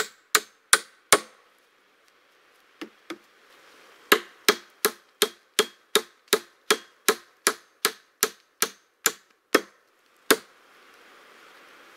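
Hammer striking a log beam where it sits on an upright wooden post, in steady sharp blows about three a second. The blows stop about a second in, two lighter taps come near three seconds, then a second steady run of blows ends about ten seconds in.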